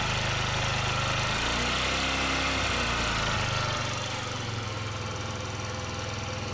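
Small scooter engine idling steadily, running a little quieter from about four seconds in. It is freshly revived after a carburettor cleaning, and the owner calls its running uneven, with misfires he puts down to the carburettor needing adjustment.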